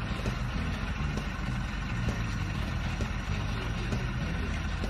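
Steady low rumble of an idling vehicle engine, with a few faint knocks.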